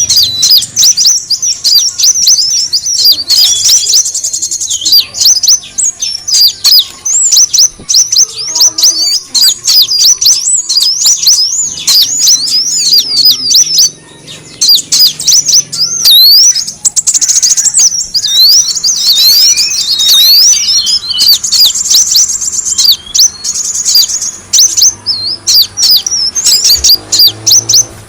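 Kolibri wulung sunbird twittering: a dense run of rapid, high chirps and trills with a short lull about halfway through. It is a lure recording of the bird's call, used to draw in wild birds.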